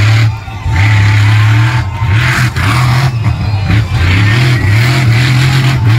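Monster truck engine revving hard at full throttle, lifting off briefly about half a second in and several times later before surging back, as the truck spins on the dirt.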